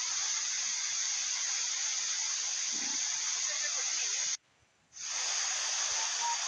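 Waterfall rushing as a steady hiss of falling water, cut to near silence for about half a second some four seconds in, then resuming.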